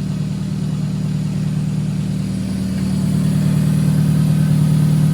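Toyota Celica engine idling steadily on freshly fitted spark plugs and plug wires, getting a little louder about three seconds in.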